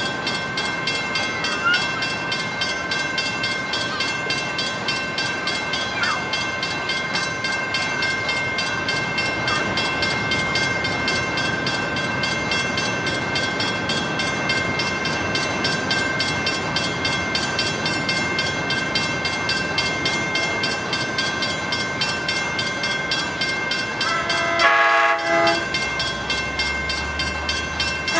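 Mechanical railroad crossing bell ringing steadily with rapid, even strokes. Near the end the approaching Amtrak Pacific Surfliner train sounds two short horn blasts, and a low rumble from the train starts to build.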